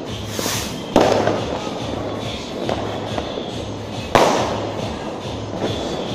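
Firecrackers going off in a street: two loud bangs about three seconds apart over a steady background of more distant fireworks crackle.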